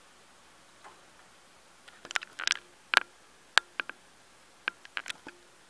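Handling noise from the recording device: quiet at first, then a scatter of sharp clicks, taps and knocks, with a first cluster about two seconds in, two loud single clicks soon after, and a last cluster near the end.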